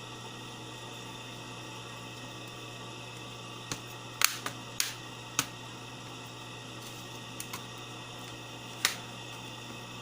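Several sharp, irregular clicks over a steady low hum. Most fall in a cluster about four to five seconds in, with a loud single click near the end.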